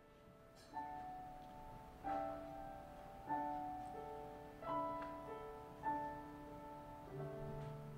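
Piano playing a slow introduction: a chord struck about every second and a quarter, each one held and left ringing.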